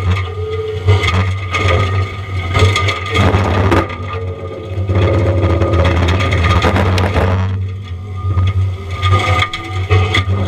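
A Diamond Mower forestry mulching head grinding pine wood, with cracking and splintering, over the steady drone of a John Deere 333E compact track loader's diesel engine and a steady whine. The grinding eases for a moment about eight seconds in, then picks up again.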